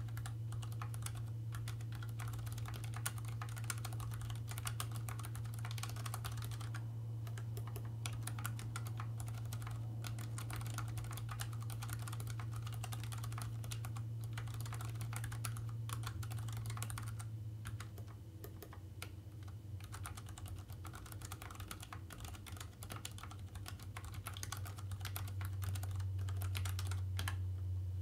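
Typing on a Keychron K3 low-profile mechanical keyboard with stock, unlubed brown (tactile) switches: a continuous patter of key clicks that thins out somewhat about two-thirds of the way through. A steady low hum runs underneath.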